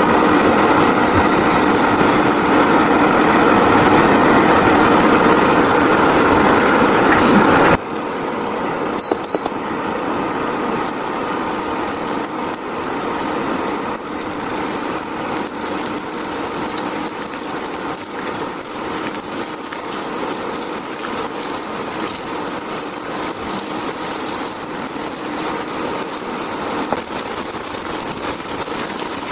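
Coated milkfish frying in hot oil, a steady sizzle; about eight seconds in the sound cuts to a quieter, brighter sizzle.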